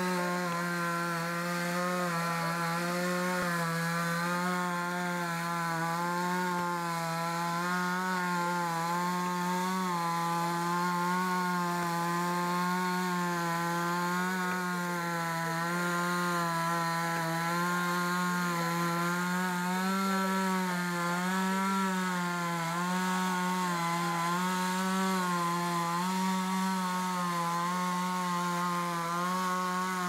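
Chainsaw running steadily at high revs for the whole stretch, its pitch wavering slightly up and down as the load changes.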